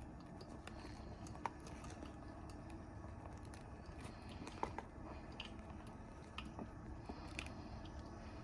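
Technivorm Moccamaster drip coffee maker brewing: a faint, steady low rumble from the copper heating element as it boils water up to the brew basket, with scattered irregular pops and clicks.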